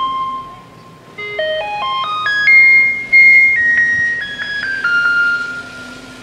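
Taiwanese garbage truck's loudspeaker playing its electronic melody in plain single notes: one held note fades into a short lull, then about a second in the notes climb in a quick run and step back down.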